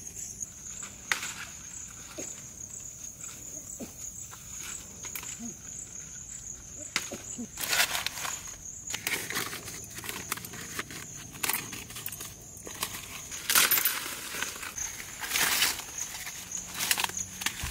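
Insects chirring steadily in a high, thin, pulsing drone, with bursts of leaves rustling and crackling as leaves are picked from a shrub and handled in a basket, loudest about halfway through and again a little later.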